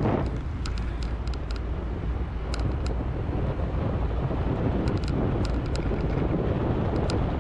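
Wind buffeting the microphone and a low rumble from a moving bicycle, with a few scattered light clicks.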